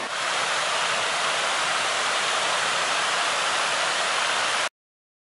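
Water spilling over a low, wide cascade in a garden water feature: a steady, even rushing that cuts off abruptly near the end.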